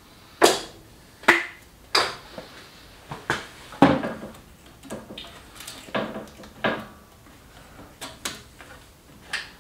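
A series of about ten sharp knocks and clicks at irregular intervals, loudest in the first four seconds: hand work with metal parts while fitting a hose clamp and pipe on a diesel air heater.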